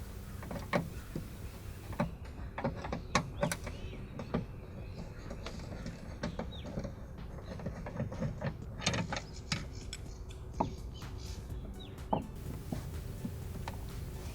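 Irregular sharp clicks and knocks of hand work on a car door, with a few short bird calls in the background.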